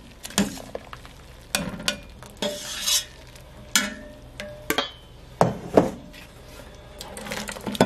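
Wire-mesh strainer knocking and scraping against a stainless steel stock pot while scooping boiled dried anchovies and kelp out of simmering broth, with liquid splashing. About half a dozen irregular knocks, the last two close together near the end.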